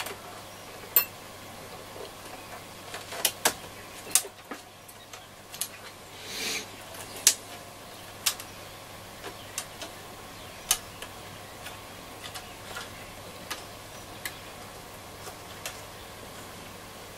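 Scattered light clicks and ticks of fingers handling and tucking wiring inside a transistor radio's case, with a brief rustle about six seconds in.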